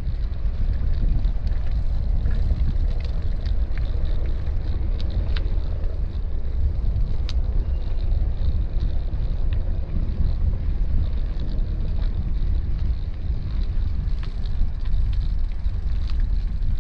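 Steady low rumble of wind buffeting the microphone of a camera riding on a moving bicycle, with the hiss of tyres rolling along a wet towpath and occasional small clicks and ticks.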